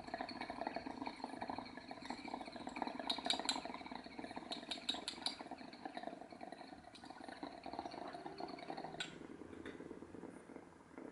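Water bubbling in a glass dab rig as someone draws through it, a steady gurgle, with a few quick glassy clicks around three and five seconds in and one more near the end.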